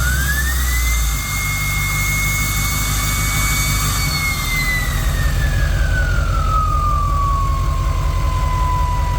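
Diesel engine with a stainless 5-blade 68/71 turbocharger, its turbo whistling over the engine rumble. The whistle climbs in pitch in the first second as the turbo winds up, holds high for a few seconds, then slowly falls back to its idle pitch as the turbo spools down.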